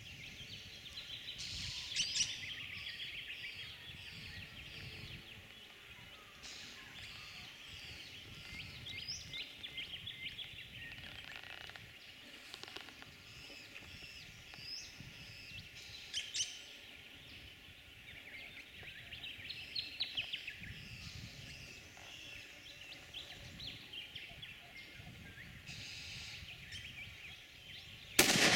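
Small birds chirping and calling, a scatter of short high notes. Right at the very end a sudden loud shot rings out.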